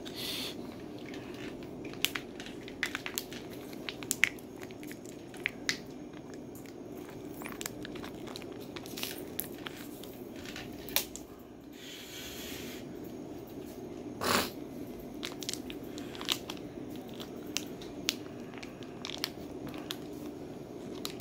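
Plastic and foil snack packets crinkling and crackling in the hands as they are handled and torn open, with many sharp crackles and one louder, longer burst about two-thirds of the way through.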